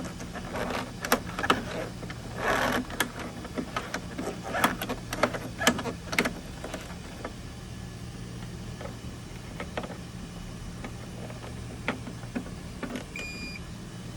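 Clicks, knocks and rustles of hands working a robotic pool cleaner and its charger. They come thick for the first several seconds, then thin out to occasional clicks over a steady low hum. A single short, high electronic beep sounds near the end.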